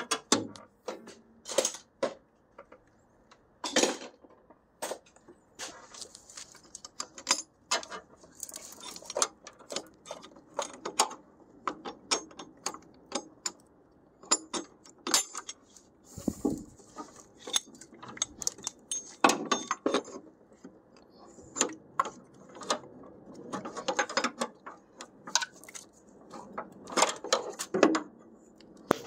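Metal hand tools and bolts being handled during engine disassembly: irregular clinks, clicks and knocks of wrenches and sockets on metal, with bursts of ratchet clicking.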